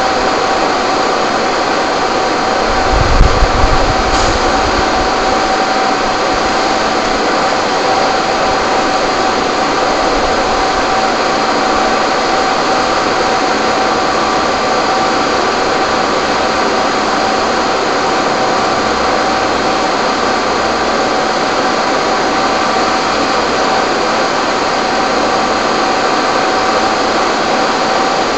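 Steady loud machine-like hiss and hum with a few constant tones in it, and a brief low thump about three seconds in.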